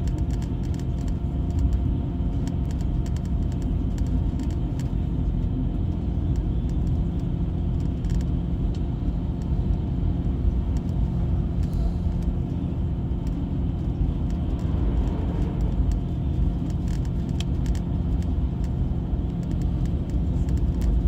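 Inside a GO Transit coach on the highway: a steady low engine and road rumble with a constant hum, and light, frequent clicks and rattles from the cabin fittings.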